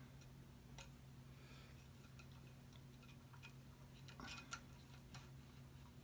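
Faint, irregular ticks and clicks of thin braided wire being wrapped by hand around the top of a plastic-coated wire basket, over a low steady hum.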